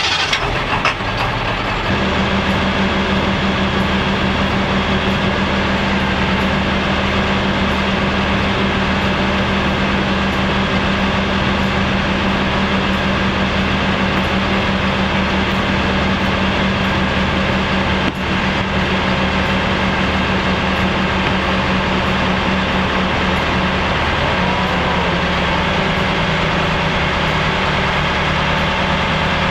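Crane truck's engine and hydraulic pump running steadily as the crane takes up the load, with a strong steady hum. The pitch steps slightly lower late on.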